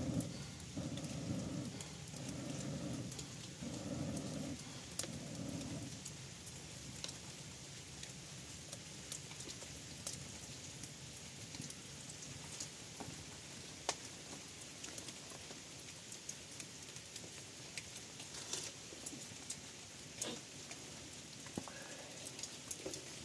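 Breath blown in repeated long puffs onto a smouldering twig fire to coax it into flame, about five puffs over the first six seconds. After that a steady hiss of rain goes on, with scattered small sharp ticks.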